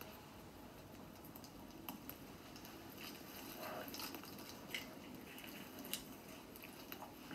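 Faint scattered crackles and small clicks of a small twig fire being lit and tended, over a low hiss, heard through a television speaker.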